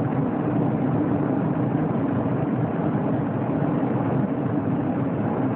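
Steady drone of road and engine noise inside a moving car's cabin.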